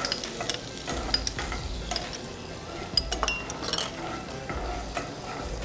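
Chopped tomatoes and garlic frying in olive oil in a nonstick pan, stirred with a wooden spatula: a steady sizzle with many short taps and clinks of the spatula and bowl against the pan.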